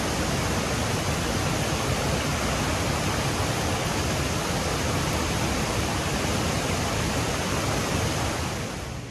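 Cascade fountain: water pouring steadily over a wide stone ledge into the basin below, heard close up as a loud, even rush, which drops away near the end.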